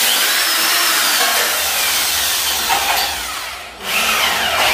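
Corded electric drill working into steel furring channel: a loud, harsh grinding run with a whine that rises and falls as the trigger is worked. It stops briefly about three and a half seconds in, then starts again.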